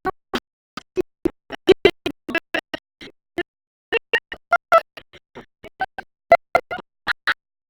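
A rapid, irregular string of very short, clipped burp sounds, several a second, each cut off abruptly, in a stuttering, chopped-up edit.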